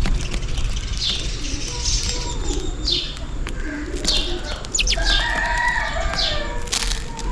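House sparrows chirping: a string of short, sharp, falling chirps, one every half second to a second. About five seconds in, a lower, longer call comes in with them.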